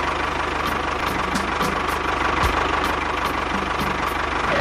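Tractor engine running steadily with a fast, even chugging beat.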